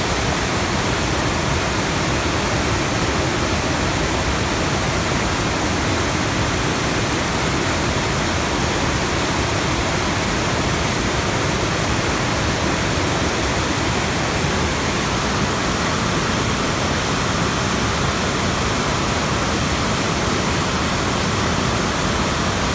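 Fast, turbulent river water rushing and foaming white past a water-intake screen: a loud, steady rush that does not change.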